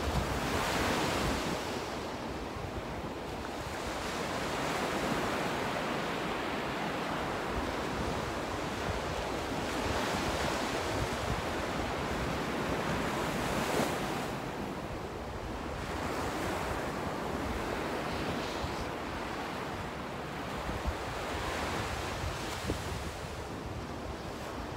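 Ocean surf breaking and washing up the sand, swelling and easing every few seconds, with wind rumbling on the microphone.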